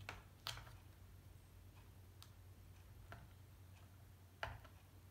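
Scattered light plastic clicks as a replacement laptop keyboard is pressed and pushed into its latches on the palm rest with a screwdriver tip. The two loudest clicks fall about half a second in and near the end.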